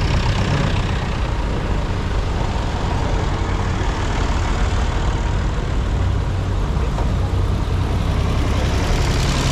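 Vintage diesel farm tractors driving past close one after another, their engines running steadily at road speed. A David Brown 995 goes by first, then a red tractor with a front loader.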